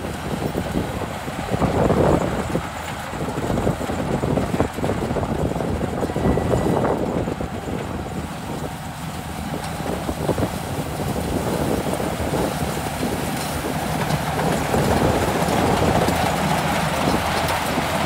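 Crawler combine harvester harvesting rice: its engine and threshing machinery running steadily under load, growing louder near the end as the machine comes close.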